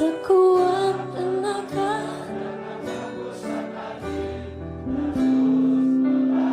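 Pop song with a woman singing over a backing band, ending on one long held note about five seconds in.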